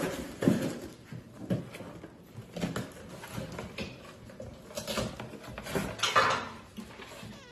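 A cardboard shipping box being opened by hand: a run of irregular scrapes, knocks and rustles as the flaps are worked loose and pulled up, the longest rustle about six seconds in.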